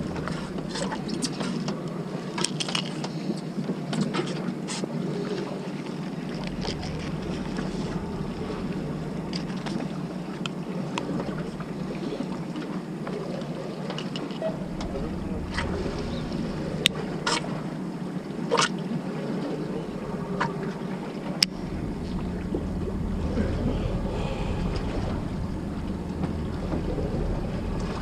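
A fishing boat's engine runs steadily while wind buffets the microphone in gusts, with scattered small clicks and taps from handling the baitcasting rod and reel.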